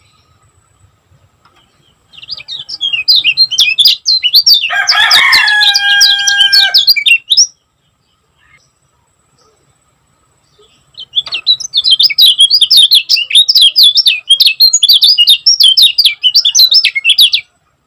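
Kecial kuning singing its fast, dense chattering song, with rapid high chirps packed close together in two long runs separated by a few seconds' pause. A lower, drawn-out call with steady tones cuts in partway through the first run.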